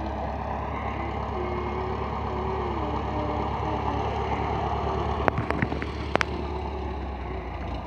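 Single-engine light aircraft's piston engine running at low taxiing power, its note wavering slightly up and down. A few sharp clicks come between about five and six seconds in.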